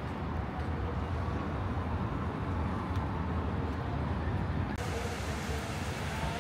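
Street ambience: a steady rumble of road traffic with faint voices of people around.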